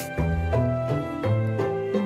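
Instrumental background music: a melody of held notes changing every half second or so over a steady bass line.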